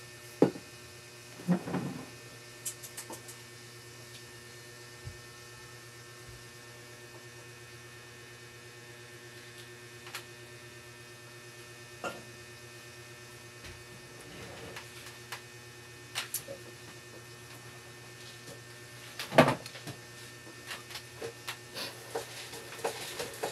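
Steady electrical hum with a buzzy, many-toned character, with scattered short clicks and knocks over it, the loudest about 19 seconds in.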